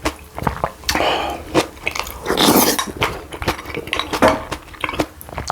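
Close-miked eating sounds: utensils clicking and clinking against a bowl, with chewing, and a brief noisy rush about two and a half seconds in.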